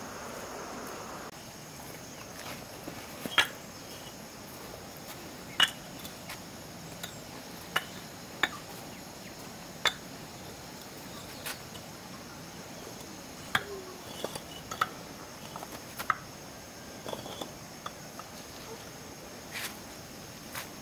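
Crickets chirring steadily and high-pitched, with a scatter of sharp, irregular taps and knocks, the loudest about three and five and a half seconds in. A rustling noise stops about a second in.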